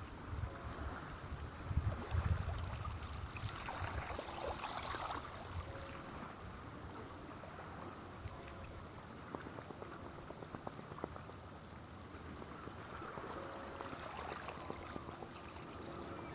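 Sea water lapping and sloshing gently, with wind buffeting the microphone in the first few seconds.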